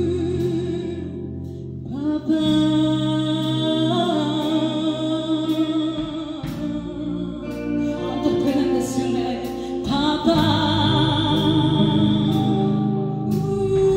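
A live worship band playing, with a woman singing long held notes with vibrato over keyboard, electric guitar and drums.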